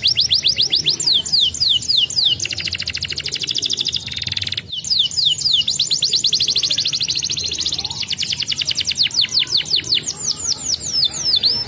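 Domestic canary singing: a rapid string of high, downward-sweeping whistled notes, about seven a second, broken by a very fast rolling trill from about two and a half to four and a half seconds in.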